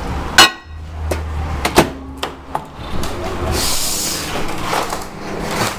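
Microwave oven door clicking shut on a mug, then the oven humming steadily as it runs, with several more clicks and knocks of handling.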